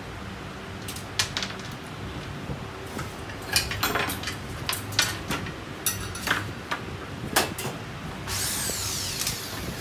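ACZ 185 mm mini cut-off saw being taken apart by hand on a wooden workbench: scattered clicks and knocks of metal parts and a screwdriver, with one sharper knock around the middle. About a second of rough scraping and rustling comes near the end.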